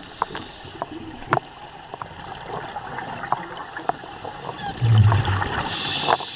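Underwater sound around a scuba diver: a steady wash scattered with sharp clicks, and a loud gurgling rush of regulator bubbles about five seconds in, followed by a short hiss near the end.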